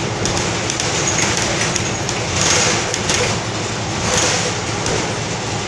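Cabin noise of a New Flyer XDE40 diesel-electric hybrid city bus under way: steady engine and road noise with rattles, a hissing rush swelling twice.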